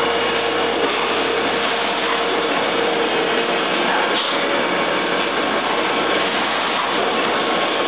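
Meat-slicing and robotic loading line running steadily: dense, even mechanical noise with a faint steady tone through it.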